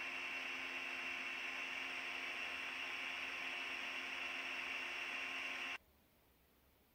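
Steady static-like hiss with a faint electrical hum of several steady tones, which cuts off suddenly near the end.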